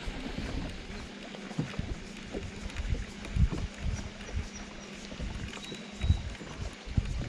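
Small waves slapping against the hull of a bass boat: irregular low knocks, two of them louder, about three and six seconds in, over a faint steady hum.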